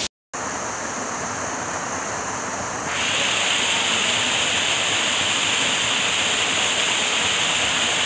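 Small waterfall rushing steadily over rocks, a steady hiss of falling water. It drops out for an instant just after the start, then comes back louder and hissier from about three seconds in.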